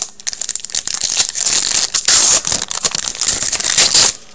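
Foil trading-card pack wrapper crinkling as it is torn open and crumpled, a dense crackle that stops suddenly about four seconds in.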